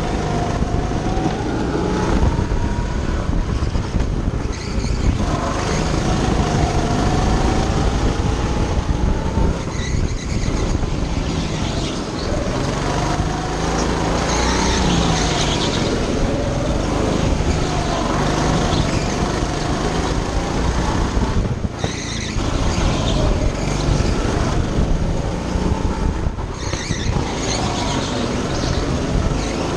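Go-kart engine running hard, its pitch rising and falling as the kart accelerates and slows through the corners, heard from a camera mounted on the kart. The engine note drops away briefly twice, near the end.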